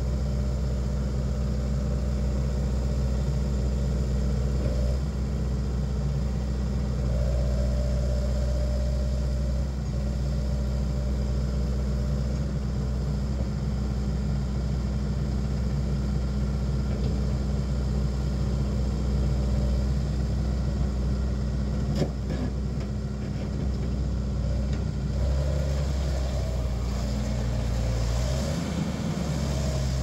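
Kubota SVL90-2 tracked skid steer's four-cylinder turbo diesel running steadily as the loader works its arms and moves. There is one sharp click about two-thirds of the way through, and the engine note shifts and glides near the end.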